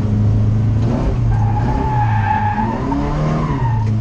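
SEAT 1430's four-cylinder engine running hard, heard from inside the car, its note dipping and changing pitch about a second in. The tyres squeal for about two and a half seconds as the car is pushed through a corner, the squeal bending up in pitch just before it stops.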